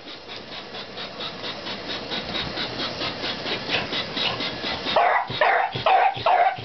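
Toy train clicking steadily around its track, then a beagle barks four times in quick succession about five seconds in.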